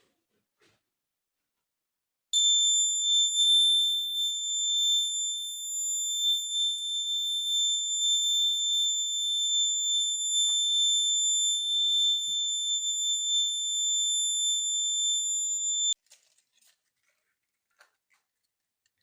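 Small electronic buzzer of a homemade 9-volt fire alarm sounding one continuous high-pitched tone. It switches on about two seconds in and cuts off suddenly some thirteen seconds later.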